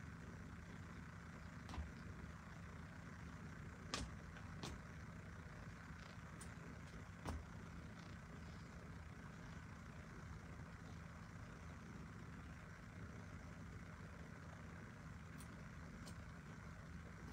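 Quiet room tone: a steady low hum with a few faint knocks and clicks scattered through it.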